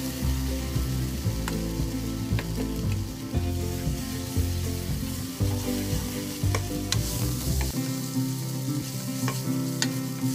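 Onions, mushrooms and ham sizzling with ketchup in a non-stick frying pan while a wooden spatula stirs them, with scattered light knocks of the spatula on the pan. The ketchup is being fried down to drive off its water.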